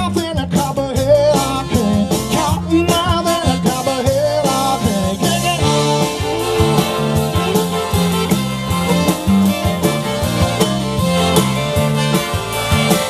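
Live roots band playing a song on electric guitars, fiddle and accordion over a steady bass line. A man sings over the band at first, and the band carries on without the voice from about five seconds in.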